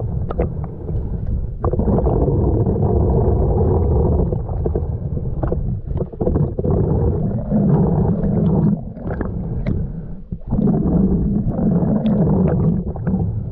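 Muffled water noise with gurgling and scattered knocks, dull and cut off above the middle range, as heard through an action camera's waterproof housing in the sea.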